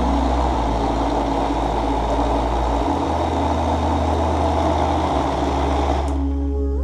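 Electric blender running at a steady speed, puréeing soaked beans and red onions into a smooth batter; it switches off abruptly near the end.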